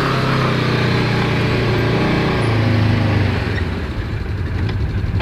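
Polaris Ranger side-by-side's engine running steadily as the utility vehicle drives off along a woodland trail, becoming somewhat quieter in the last couple of seconds.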